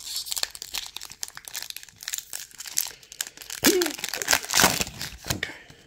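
Foil wrapper of a Disney Lorcana trading-card booster pack crinkling and tearing as it is ripped open and pulled apart by hand, with dense crackling that grows louder in the second half.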